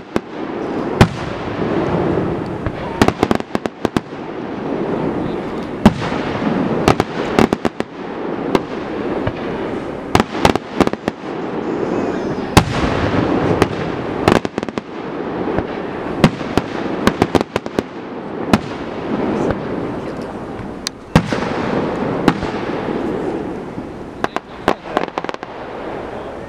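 Fireworks display: many sharp bangs of bursting shells at irregular intervals, some in quick clusters, over a steady background din.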